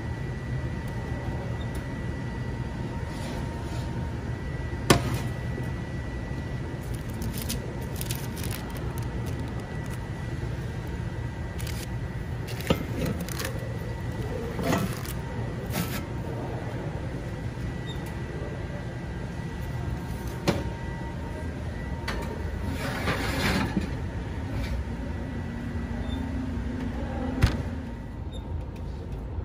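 Steady low rumble of kitchen background noise, with a handful of sharp knocks and clanks from handling a cast-iron Dutch oven and opening the oven door. The loudest knocks come about five seconds in and near the end.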